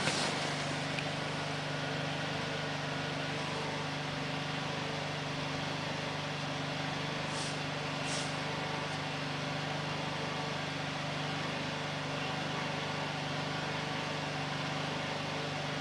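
A steady low hum under an even hiss, with two brief faint high hisses about seven and eight seconds in.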